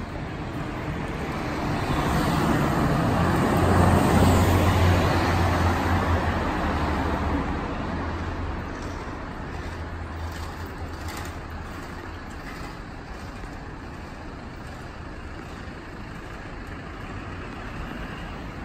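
A motor vehicle with a low engine hum passes close by on the street, loudest about four seconds in and fading over the next few seconds, then steady street traffic noise.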